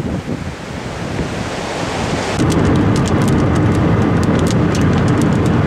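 Wind buffeting the microphone, then about two and a half seconds in a louder, steady low rumble of a car takes over, with scattered sharp ticks on top.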